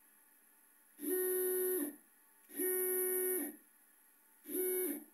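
Stepper motor on the B axis of a DIY 5-axis demo board jogged in three short runs, each a steady whine that rises in pitch as it speeds up and falls as it slows down. The third run is the shortest.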